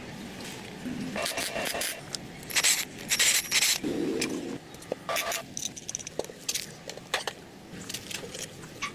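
Scraping and rubbing in short irregular strokes, from hand work on PVC pipe, with scattered sharp clicks and knocks. The loudest strokes come a few seconds in.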